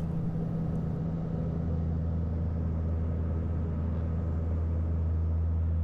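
Steady drone of a passenger aircraft's engines heard in the cabin during the climb after takeoff: an even low hum of several steady tones over a broad rushing noise.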